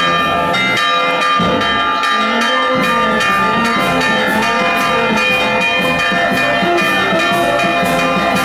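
Church bells pealing fast, several strikes a second, their tones ringing on and overlapping: the festive ringing for a saint's procession.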